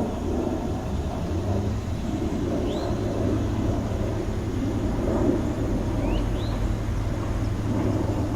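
Steady low rumble of city traffic, with a few short high rising chirps about three seconds in and again around six seconds in.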